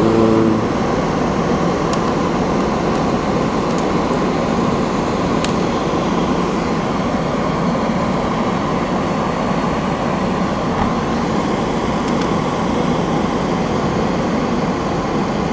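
Steady whir of an extractor fan running behind the desoldering tray, with a few faint ticks.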